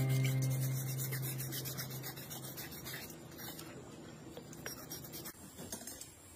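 A scouring pad scrubbing a chainsaw's metal crankcase and finned cylinder in soapy water: a continuous rubbing scrape that gradually fades.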